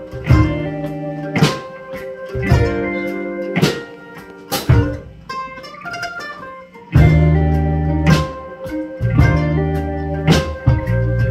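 F-style mandolin picking a melody in sharp, ringing notes. Low bass notes join in about seven seconds in.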